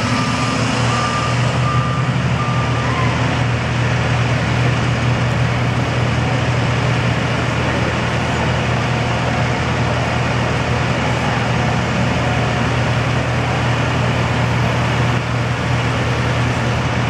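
Idling emergency-vehicle engines, a steady low drone. A vehicle's reversing beeper beeps over it and stops about three seconds in.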